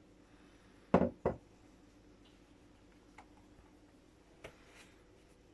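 Two sharp knocks in quick succession about a second in, from kitchen things being handled or set down, followed by a couple of faint clicks.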